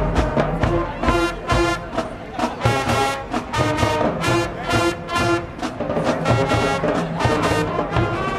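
Marching band playing live: the brass section blasts short, punchy chords over drums in a driving rhythm.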